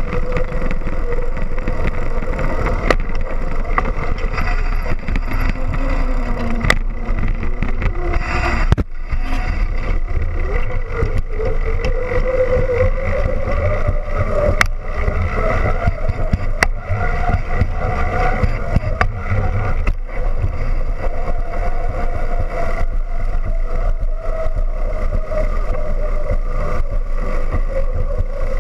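Trek Xcaliber mountain bike rolling over smooth concrete, with a steady rumble from the tyres and wind on the microphone. A hum wavers in pitch and rises around the middle, and there are occasional sharp clicks.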